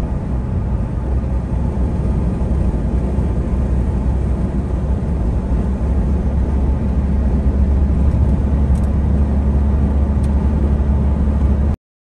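Road and engine noise inside a moving vehicle's cabin: a steady low rumble that grows a little louder and cuts off abruptly near the end.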